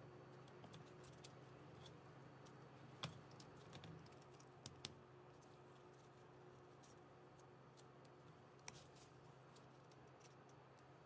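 Near silence with a few faint, scattered clicks and ticks of small parts being handled and fitted at the drill's chuck end: the sharpest about three seconds in, a quick double click soon after, and one more later; a faint steady hum underneath.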